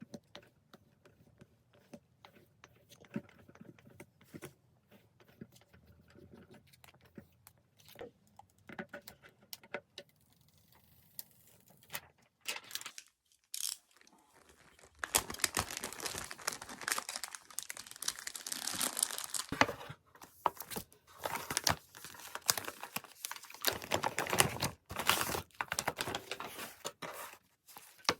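Packaging being handled and unwrapped: scattered light clicks and taps at first, then steady crinkling and tearing of plastic or paper wrapping from about halfway through.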